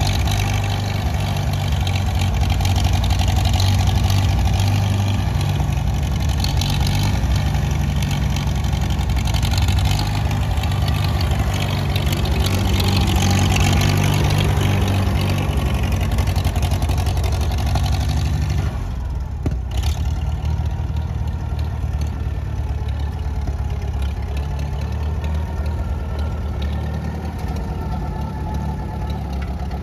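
1955 Farmall 300 tractor's four-cylinder engine running steadily while the tractor is driven past, the sound sweeping and swirling as it passes closest. About two-thirds through there is a sudden change, after which the engine runs quieter and more evenly.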